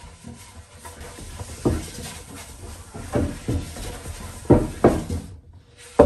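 Round wooden tabletop being turned by hand to screw it onto the fluted base's centre threaded rod: several dull wooden knocks as the top shifts and bumps against the base.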